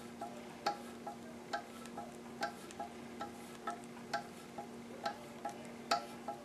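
Tap handle and 5/16-18 tap being turned back out of a threaded hole in the cast-aluminium diffuser housing: a regular series of light metallic clicks, about two a second, each with a brief chime-like ring, over a steady low hum.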